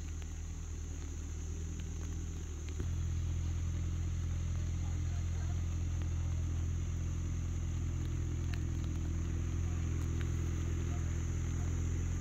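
An engine or motor running steadily with a low, even hum that gets louder about three seconds in, as if it has come up to a higher speed or load. A steady high-pitched hiss runs underneath it.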